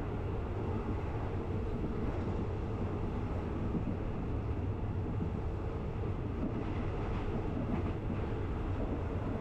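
Passenger train running along the track: a steady rumble and rattle from the carriages, with a few faint clicks about seven seconds in.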